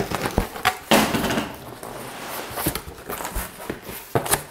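Cardboard shipping box being handled and opened: a few sharp knocks and scrapes of cardboard, with a short rustle about a second in.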